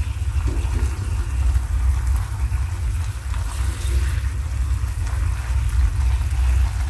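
A steady low rumble under a faint sizzling hiss as spaghetti is tossed with silicone tongs in a frying pan on the heat; the rumble cuts off suddenly at the very end.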